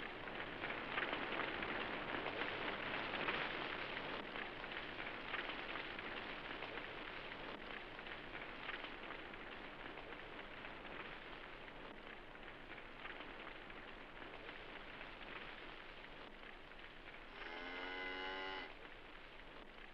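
Steady rain falling, loudest in the first few seconds and slowly easing. Near the end comes a brief pitched sound lasting about a second.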